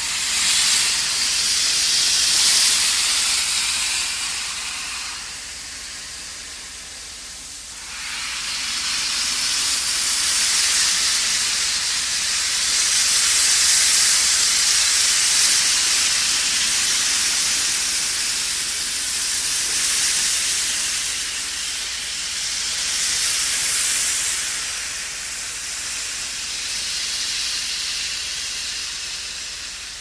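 Steam locomotive venting steam in long hissing blasts that swell and ease over several seconds. After a quieter spell, a fresh blast starts abruptly about eight seconds in and runs on, rising and falling.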